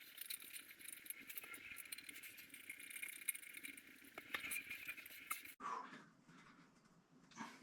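Faint light metallic clinking and clicking of small hardware being handled and worked, likely the nuts and washers on a toilet's floor bolts being tightened. It cuts off suddenly about five and a half seconds in, and a soft knock follows near the end.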